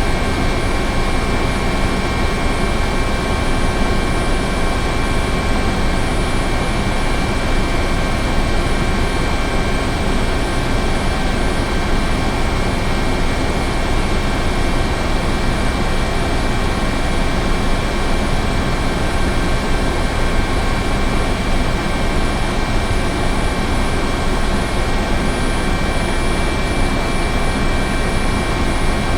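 Helicopter running steadily: a constant rush of engine and rotor noise with several steady high whining tones over it.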